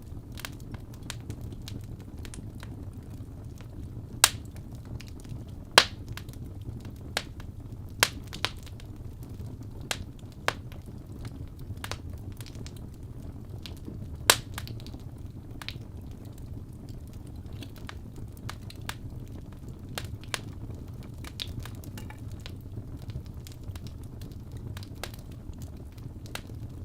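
Fireplace fire burning: a steady low rumble of flames with irregular sharp crackles and pops, a few of them loud.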